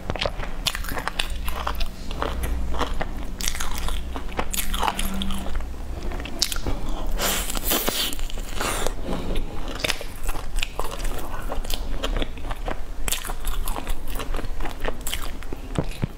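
Close-up biting and chewing of a bun coated in meat floss and seaweed with a soft filling: a dense run of crunchy, crackly mouth sounds.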